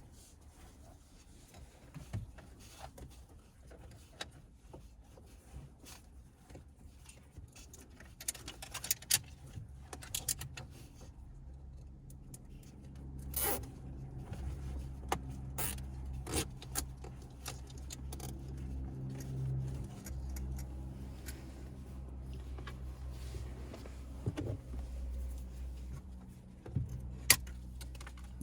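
Scattered plastic clicks and rattles of hands working in a truck's dash, with nylon zip ties being ratcheted tight around a wiring adapter. A low steady hum comes in about halfway through.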